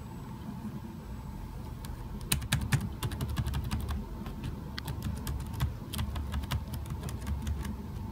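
Keys of an EPSON Direct Endeavor NY40S laptop keyboard pressed one at a time by a finger, giving short irregular clicks. The clicks come thickly from about two seconds in.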